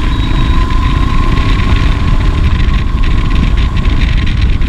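Royal Enfield Himalayan's single-cylinder engine running under heavy wind buffeting on the camera microphone, with a steady high tone alongside.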